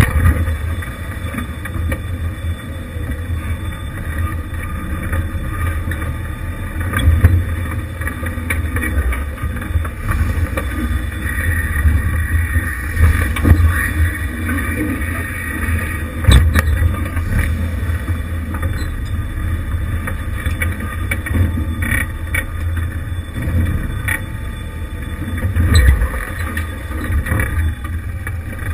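Jeep Wrangler YJ engine running at low speed as it crawls over rocks, with a handful of sharp knocks and thumps as the tyres and underbody strike stone.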